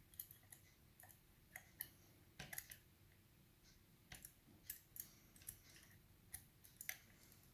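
Faint, irregular metallic clicks and ticks of a pick and tension tool working the levers of a five-lever mortice lock as it is being picked.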